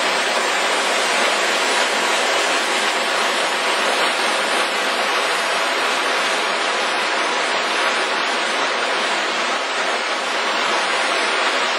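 Stormwater runoff from a hard rain rushing down a concrete channel in a churning white-water torrent: a steady, loud rush of water.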